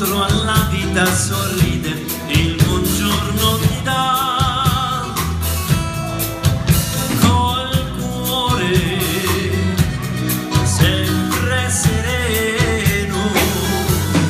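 Live band playing a song: accordion, electric guitars and drum kit keeping a steady beat, with a melody line over the top.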